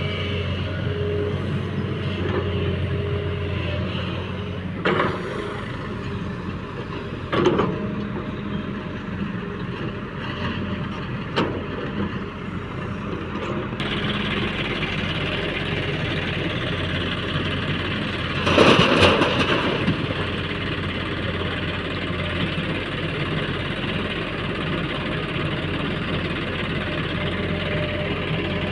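Diesel engine of a JCB 3DX backhoe loader running steadily under work, with a few short clunks and a louder rough burst about two-thirds of the way through.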